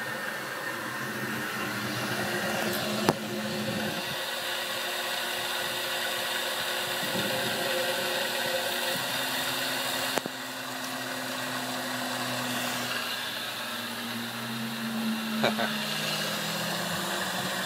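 Grizzly G0704 benchtop milling machine, CNC-converted, running its spindle while a chamfering end mill cuts a circular path in the workpiece under stepper-motor feed: a steady motor whine over cutting noise, shifting somewhat in pitch in the second half. Two brief sharp clicks, one near the start and one midway.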